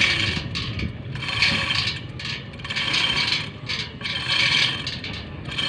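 Chain hoist lifting a line-array speaker cluster up a truss tower: the hoist chain rattles and clicks through its ratchet in repeated pulls, about one a second.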